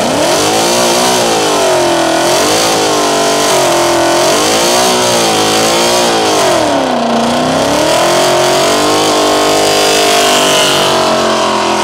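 V8 muscle car engine held at high revs, its pitch swinging up and down several times before settling to a steady high note near the end.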